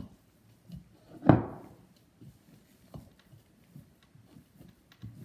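A spoon stirring a thick cornstarch-and-shampoo slime mixture in a plastic mixing bowl, knocking against the bowl a few times. The loudest knock comes a little over a second in.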